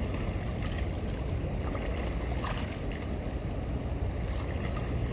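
A boat out on open water: a steady low rumble with water noise.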